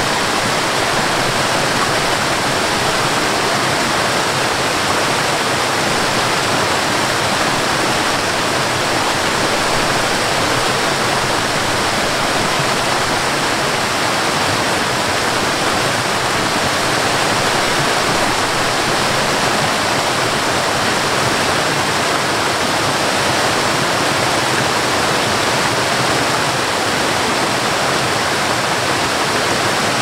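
Water of a multi-tiered cascading waterfall rushing and splashing over rock ledges, a steady even rush.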